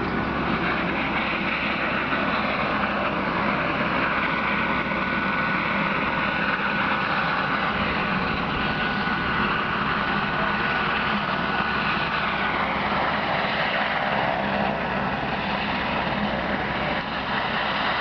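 Steady engine and wind noise of a moving vehicle, heard from inside, with a faint steady whine for a few seconds in the first half.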